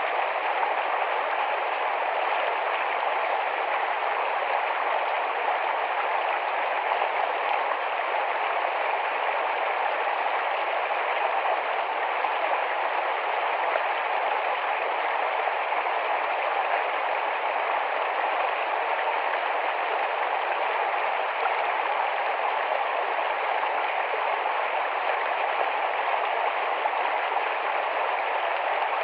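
A rapid, shallow forest stream flowing with a steady rush of water.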